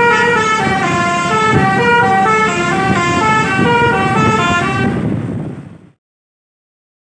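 Basuri 'telolet' multi-tone bus horn playing a tune of quick stepped notes over a low rumble. It cuts off abruptly about six seconds in.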